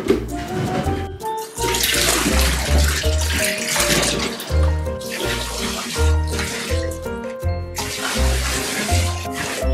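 Water poured from a bucket over a wet dog standing in a bathtub, splashing in three long spells. Background music with a steady beat plays throughout.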